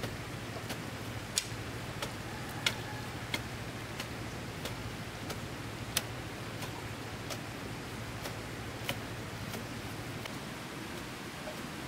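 Sharp, regular ticking, about one tick every two-thirds of a second, over a steady hiss and a low hum that fades away.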